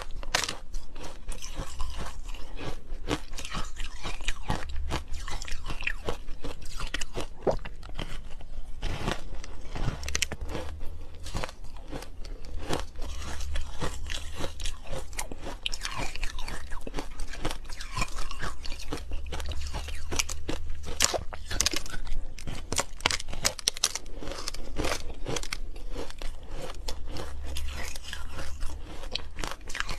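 Ice coated in matcha green tea being bitten and chewed close to a clip-on microphone: many sharp crunches in quick, irregular succession.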